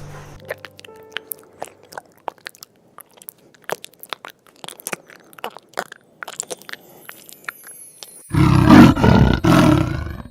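Scattered clicks and crackles, then about eight seconds in a loud, deep animal roar in two or three pulses.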